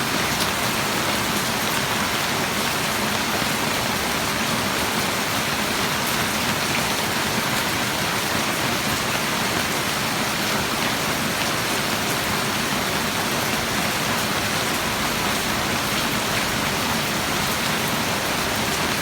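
Steady heavy rain falling and pattering on surfaces, an even hiss with scattered drop ticks.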